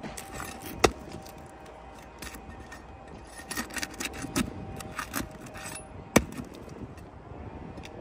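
Flat pry tool scraping and prying under brittle asphalt three-tab shingles, with scattered small clicks and two sharp cracks, about a second in and about six seconds in. The cracks are typical of the brittle shingles and their seals giving way.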